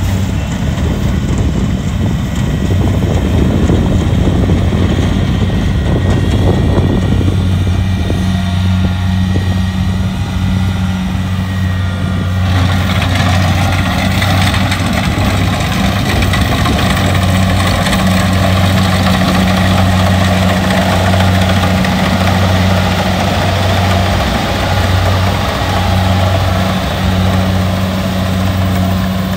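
Kubota rice combine harvester running steadily, its engine giving a constant low hum. About halfway through, a harsher, hissier mechanical noise suddenly grows louder over the hum.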